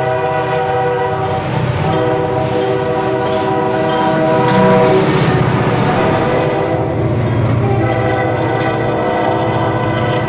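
Diesel freight locomotive's multi-chime air horn blowing: two blasts in the first few seconds, then a long blast from about seven seconds in as it approaches a grade crossing. Under it runs the locomotive's diesel engine rumble, with the clatter of passing tank cars in the middle.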